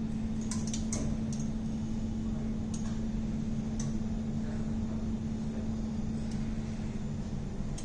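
Steady electric hum of the passenger lift's machinery while the car travels to the first floor, cutting off near the end, with a few light clicks in the first few seconds.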